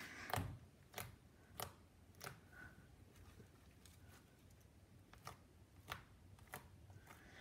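Green slime being pressed flat and stretched by hand, giving faint, scattered little clicks and pops, roughly one every half second to a second.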